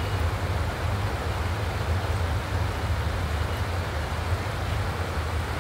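Shallow river running over rocks: a steady rushing noise with a strong low rumble.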